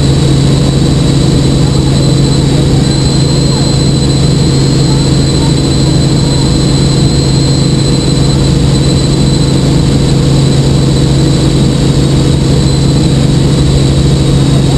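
Helicopter in steady cruising flight, heard inside the cabin: a loud, unchanging drone of rotor and engine with a steady high-pitched whine above it.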